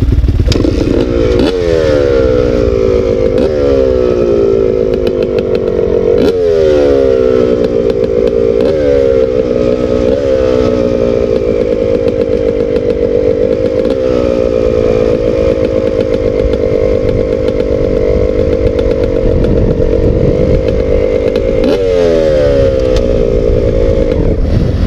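Kawasaki 250 dirt bike engine idling and being blipped on the throttle, the pitch jumping up and falling back every second or two. Midway it holds steadier for several seconds, then two more blips come near the end.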